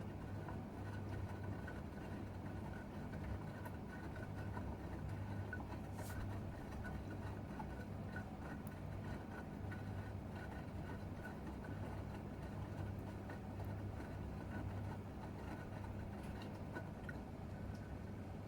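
Gorenje UseLogic 65165 washing machine running steadily partway through a wash cycle: a low motor hum with faint scattered ticks.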